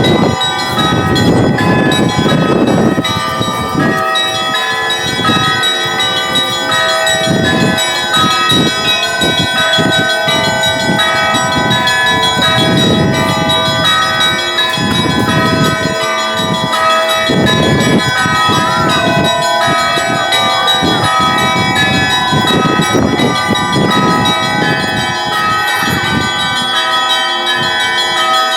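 Russian Orthodox church bells being rung, many bells struck in a continuous peal so that their ringing tones overlap and sustain.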